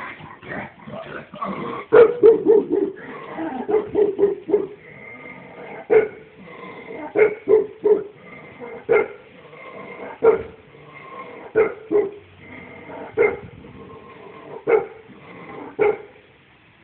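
A 15-year-old Shar-Pei barking: a quick run of barks about two seconds in, then single barks repeated about every second and a half.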